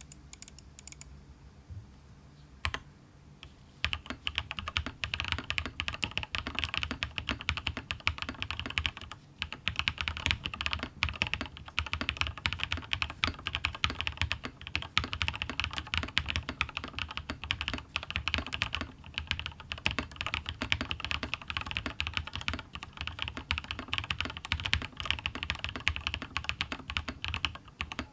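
RAMA KARA mechanical keyboard with lubed Durock POM linear switches, a polycarbonate plate and PBT keycaps, typed on fast and continuously. A few isolated key clicks come first, and the steady run of keystrokes starts about four seconds in.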